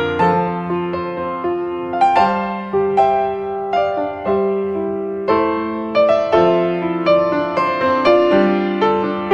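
Background music: solo piano, with notes struck about every half second, each one dying away before the next.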